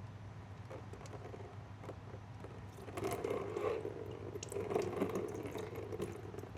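Air and then coolant escaping from a low-point opening in a Kawasaki ZX-6R's cooling system during bleeding: a little air comes out first, then coolant runs out, louder from about three seconds in. Coolant flowing there is the sign that the trapped air has been pushed out.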